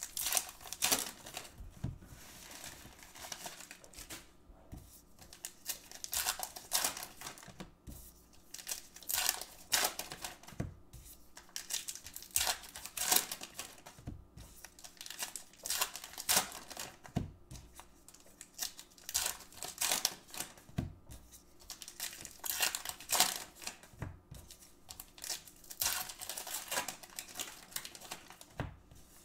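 Topps baseball card pack wrappers crinkling and tearing as they are ripped open by hand, in irregular bursts of crackling with short quieter gaps, along with the rustle of cards being handled.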